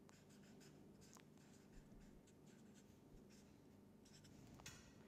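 Marker pen writing on paper: faint, short strokes as a chemical formula is written out.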